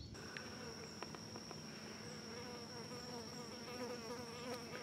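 Flies buzzing in flight, a wavering drone that rises and falls and grows a little louder toward the end, over a steady high-pitched tone.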